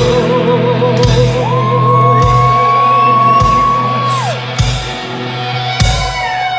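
Live hard rock band: the singer holds a long wavering note, then slides up to a high wailing note held for about two and a half seconds before it drops away. Under it, distorted guitars and bass hold a steady chord, with drum hits about once a second.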